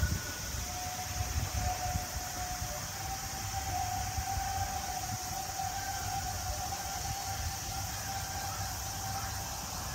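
Sangi Railway Hokusei Line narrow-gauge electric train pulling away, its motors giving a steady whine that rises slightly in pitch. A low rumble and a steady high hiss sit underneath.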